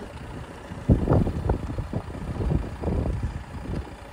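Snow being brushed off a car: a series of irregular sweeping strokes, several a second, starting about a second in.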